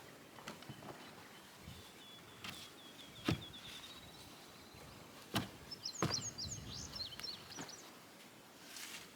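Scattered knocks and thumps of wood slabs being handled and set in place, the loudest a little before and just after the middle. A small bird calls in the background: a quick run of even chirps early on, then a burst of higher twitters.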